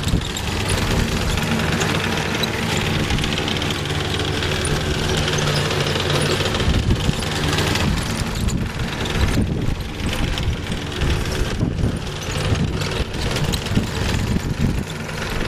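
Self-propelled lawn mower's small engine running steadily.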